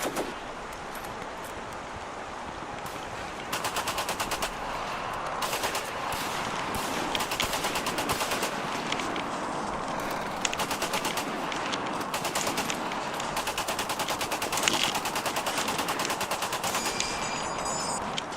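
Repeated bursts of rapid automatic gunfire, the first starting about three and a half seconds in, over a steady background of noise.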